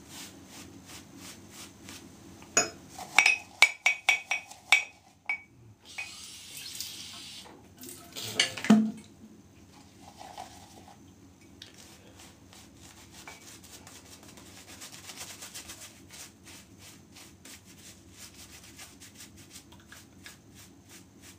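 Boar-hair shaving brush working lather onto a face: a dense, rapid run of short rubbing strokes. A burst of sharp clinks and knocks comes a few seconds in, with a short hiss after it and another knock near nine seconds.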